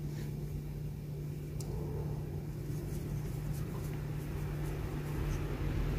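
Steady low hum, with a few faint soft ticks as a metal crochet hook works cotton yarn.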